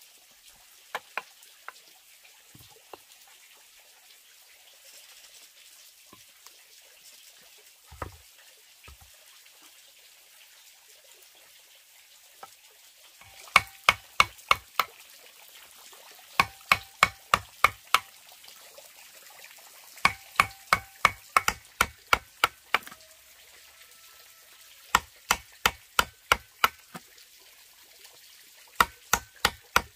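A metal chisel driven into a bamboo tube with a wooden mallet. Sharp knocks come in runs of about four blows a second with short pauses between runs. The first half has only a few scattered knocks.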